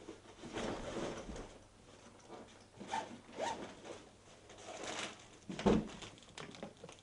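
Cloth and nylon rustling as a backpack is handled and pulled off over the head, then a chip bag crinkling as it is pulled open, in several short irregular bursts. A single sharp thump near the end is the loudest sound.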